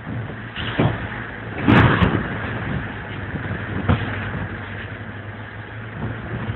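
Boat engines droning steadily over the rush of a ship's wake, heard through a phone microphone, with three sudden loud rushes about one, two and four seconds in.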